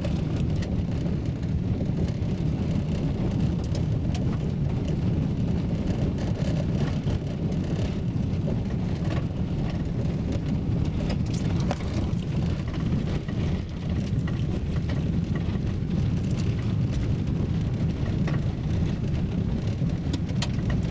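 Road noise inside a moving car: a steady low rumble of engine and tyres, with scattered small clicks and ticks from the road surface.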